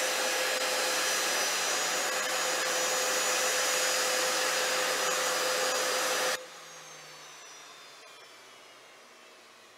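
Jet engines of a Boeing 747 (the VC-25A Air Force One) running loud and steady as it taxis, a noisy rush with a steady whine through it. About six seconds in the sound drops suddenly to a much quieter whine that slides down in pitch.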